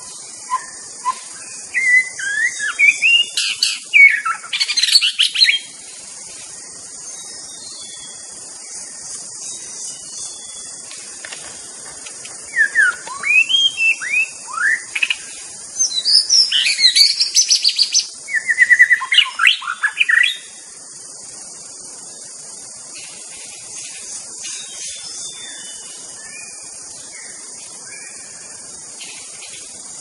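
White-rumped shama (murai batu) singing two bouts of loud, varied whistled phrases with quick rising and falling notes. The first bout lasts about four seconds; a longer bout of about eight seconds comes near the middle. Throughout there is a steady high hiss.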